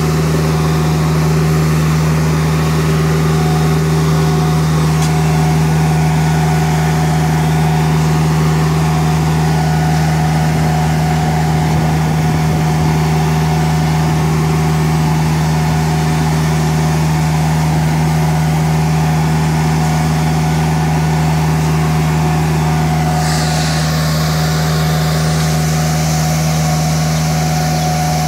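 Nilfisk CR2250 scrubber running steadily with a constant low hum as it scrubs and vacuums up water through its rear squeegee. A higher hiss joins in near the end.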